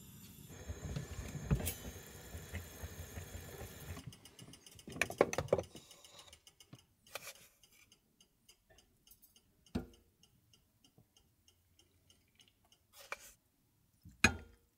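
Kitchenware being handled: scattered clinks and knocks, with louder clatters about five seconds in and near the end, over a faint regular ticking.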